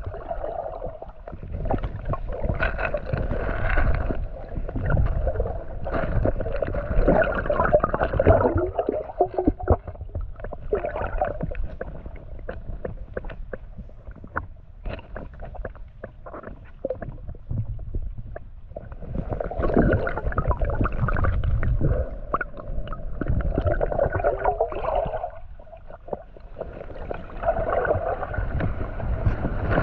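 Shallow river water sloshing and gurgling, with a low rumble and many small knocks. It comes in surges: louder in the first few seconds, quieter in the middle, then louder again near the end.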